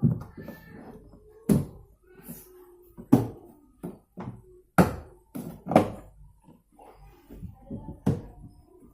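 A series of irregular knocks and clunks, about a dozen over several seconds, with fainter short tones between them.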